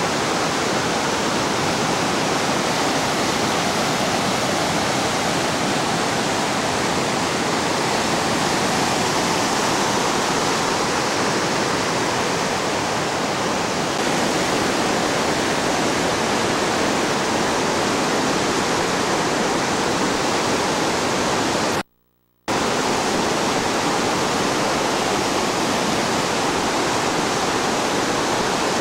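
Fast mountain river rushing over rocks in white water: a loud, steady, even rush. The sound cuts out for about half a second roughly three-quarters of the way through.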